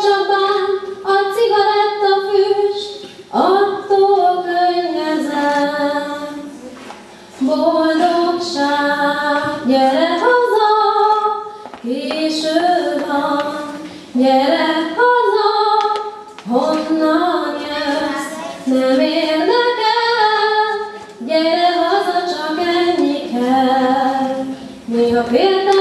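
A woman singing solo into a handheld microphone, apparently unaccompanied, in long held phrases with short breaths between them.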